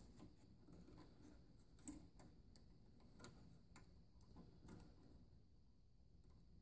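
Faint, scattered small clicks and ticks of a clear plastic zip tie being fed through a 3D-printed bracket on a printer's drive belt, with one slightly louder click about two seconds in.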